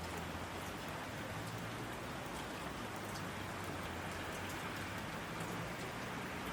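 Steady rain falling: a constant hiss of rain with scattered individual drop ticks.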